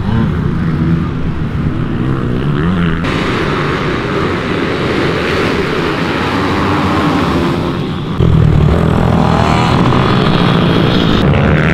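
Racing minibike engines revving hard on track, rising and falling in pitch. The sound changes abruptly about three and eight seconds in.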